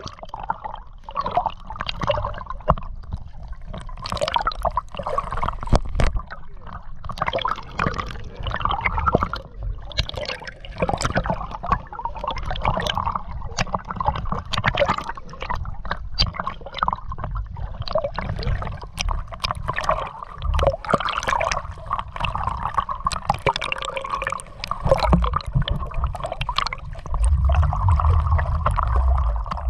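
Sea water sloshing and gurgling against a GoPro camera carried by a swimmer doing sidestroke, with irregular splashes from the strokes.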